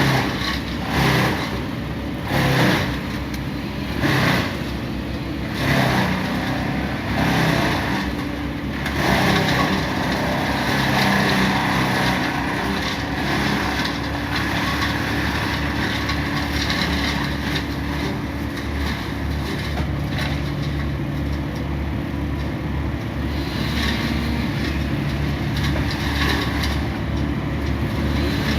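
Engine-driven tree-work machinery running. For the first nine seconds it surges under load about every one and a half seconds, then settles into a steady, loaded run.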